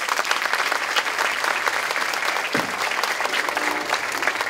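Large seated audience applauding steadily, many hands clapping.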